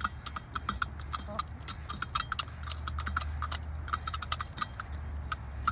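Chickens pecking at treats, their beaks giving quick, irregular tapping clicks several times a second, over a steady low hum.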